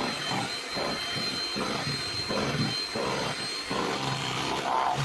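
Electric hand mixer running steadily with a high motor whine, its beaters churning through thick fruit-cake batter.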